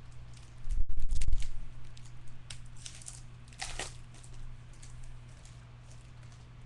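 Foil trading-card pack being torn open and crinkled, with cards rustling, over a steady low hum. A dull knock about a second in is the loudest sound.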